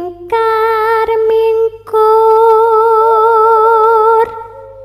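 A woman's voice singing slow, long held notes like an eerie lullaby, the second and longest note wavering with vibrato before fading out near the end. A couple of faint clicks sound about a second in.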